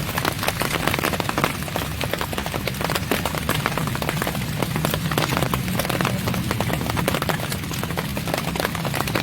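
Steady heavy rain: a dense, continuous patter of drops striking a surface, with a steady low-pitched noise underneath.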